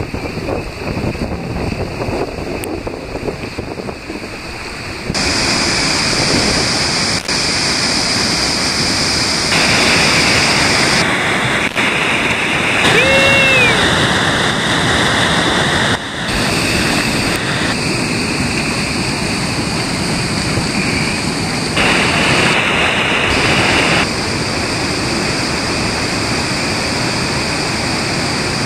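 Whitewater rushing through river rapids, heard close up. The water is softer for the first five seconds, then louder, and the sound changes abruptly every few seconds as one river clip cuts to the next.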